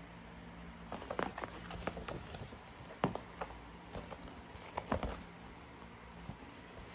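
A folded paper poster handled and turned over in the hands: the paper crinkles and rustles, with sharp crackles between about one and five seconds in.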